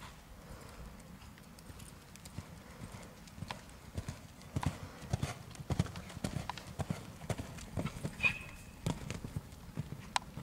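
Horse's hooves beating on a sand arena: a run of dull thumps that grows louder about four seconds in. A short high ping sounds once, a little after eight seconds.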